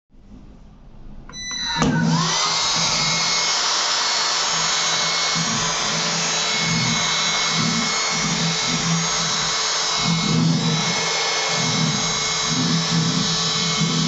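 AutoBot ABV001 cordless handheld vacuum switched on about a second and a half in: its motor spins up with a short pitch glide, then runs steadily with a high whine and rushing air as it sucks up spilled dirt. A lower hum swells and fades unevenly as the nozzle is moved over the surface.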